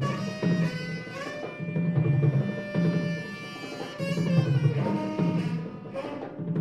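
Tenor saxophone playing long held notes, some bending in pitch, over a steady pattern of low, booming drum strokes.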